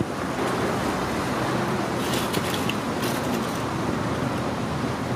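Steady road traffic noise, with a few brief sharp clatters near the middle.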